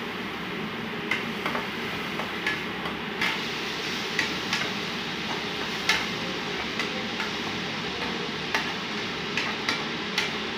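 Steel spatula stirring onion-tomato masala in a nonstick kadai, clicking and scraping against the pan irregularly, about once or twice a second, over a steady hiss.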